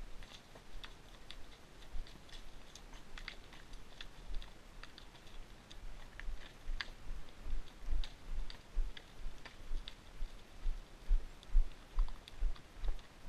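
Horse walking over rocky, brushy ground, heard close up from its own saddle: low hoof thuds in a steady walking rhythm about twice a second, growing stronger from about halfway, with scattered clicks of hooves striking stones and of tack.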